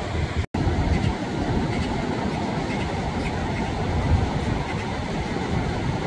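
Mountain stream rushing strongly over boulders and small cascades: a steady, powerful rush of water with a deep low rumble. The sound cuts out for an instant about half a second in.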